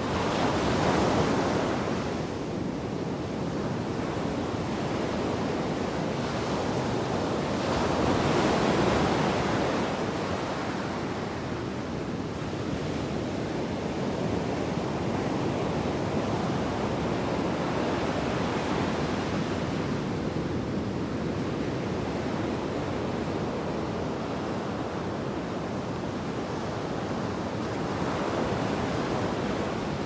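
Storm surf: heavy waves breaking and foaming up onto the beach in a continuous rushing wash, swelling louder as bigger breakers crash about a second in and again around eight to ten seconds in.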